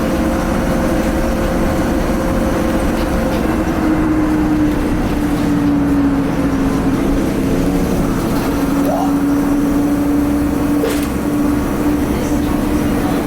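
Interior running noise of a 2010 Nova Bus LFS articulated bus under way: its Cummins ISL diesel engine and drivetrain with road rumble. A steady whine sits over it and drops to a lower pitch about four seconds in, then holds.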